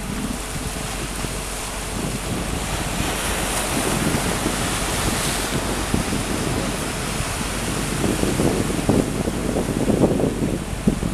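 Wind blowing across the microphone: a steady rush that brightens into a hiss around the middle, then low rumbling buffets near the end.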